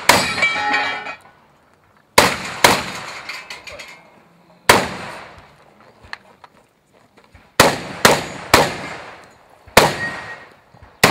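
Shotgun shots fired in a stage string, about nine at uneven intervals, some pairs under half a second apart. Each shot trails off in echo.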